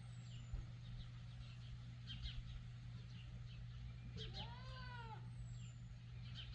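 A goat bleats once, a faint call about a second long a little past the middle, rising and falling in pitch. Faint bird chirps are scattered around it.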